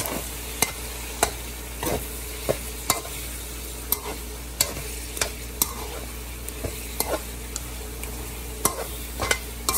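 Pork pieces sizzling and frying in soy sauce as the sauce cooks down, stirred with a spatula that scrapes and knocks against the pan about once or twice a second.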